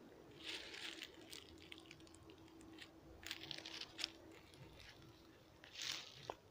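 Footsteps crunching through dry fallen leaves on a forest floor, in a few separate rustling bursts, over a faint steady hum that fades out partway through.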